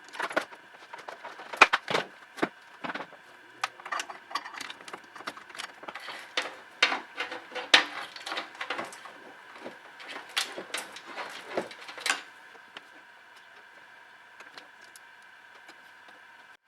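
Irregular clicks and clacks of small hard parts being handled, some sharp and loud, which stop about twelve seconds in, leaving a faint steady hum.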